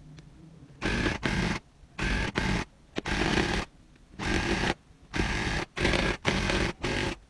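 Electric tufting gun firing yarn into the backing cloth in short bursts, switched on and off about six times, each run lasting roughly half a second to a second.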